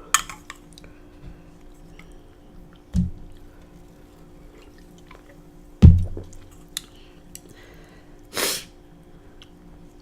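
Close-miked eating sounds: a wet mouth click at the start, then two dull low knocks about three and six seconds in, the second the loudest, and a short breathy burst near the end.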